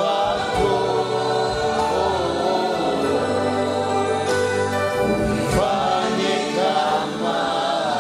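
A choir singing gospel music over sustained accompaniment.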